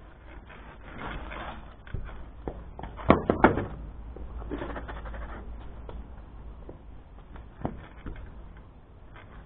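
Scuffs and knocks, with a cluster of sharp knocks about three seconds in and a single fainter knock later.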